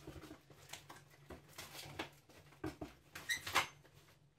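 Thin black plastic bag rustling and crinkling in irregular bursts as it is pulled off a large cardboard box, with a short squeak a little over three seconds in.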